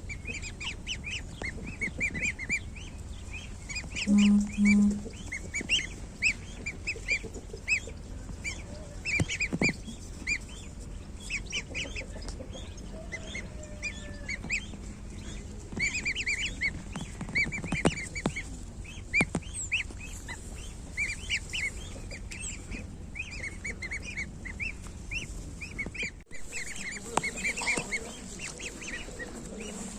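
Week-old goose goslings peeping continuously, with many short high calls. About four seconds in come two loud, low honking notes.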